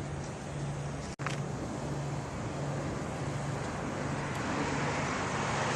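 Street traffic: a steady low engine hum, with the road noise of a passing vehicle building toward the end.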